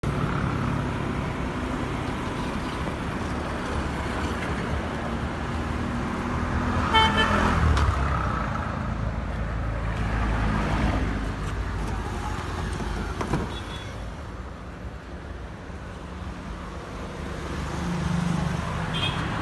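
Steady motor-vehicle and traffic noise, with a brief horn toot about seven seconds in.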